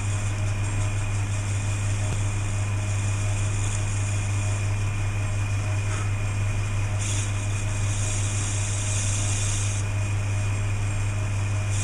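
Early-1950s Hercus metal lathe running while it turns an aluminium blank: a steady motor hum with a higher hiss that grows brighter about seven seconds in and drops back near ten seconds.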